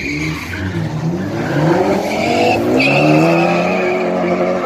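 Two cars launching side by side off a drag strip start line, their engines revving up and climbing in pitch through gear changes, with a high tyre squeal at the launch and again about three seconds in.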